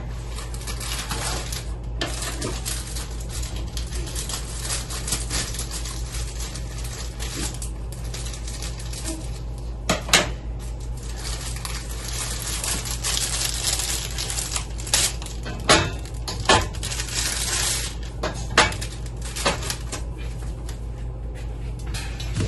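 Kitchen clatter while breakfast is made: dishes and utensils clinking and knocking, with a few sharper clinks over a steady hiss and low hum.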